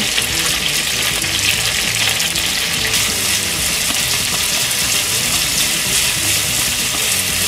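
Sliced onion, bacon, shimeji mushrooms and garlic sizzling steadily in olive oil in a frying pan while they are stirred with chopsticks.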